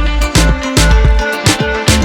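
Background music with a heavy bass beat and bright percussion, in an Afrobeat-like groove.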